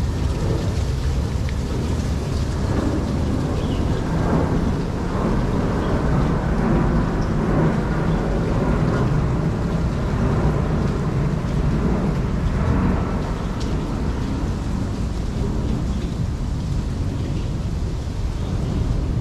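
Wind buffeting the microphone in a low, fluctuating rumble, over a steady rush of falling water from an artificial waterfall.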